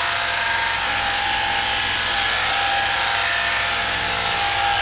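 Sheep-shearing machine handpiece running steadily, its comb and cutter shearing wool from a sheep's neck.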